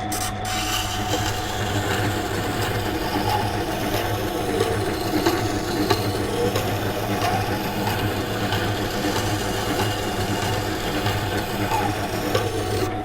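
Water-cooled stone wheel grinder running steadily with a carbon steel knife blade held against the wet stone: a continuous grinding noise over the motor's low hum, as the secondary bevel is ground and a burr is raised along the edge.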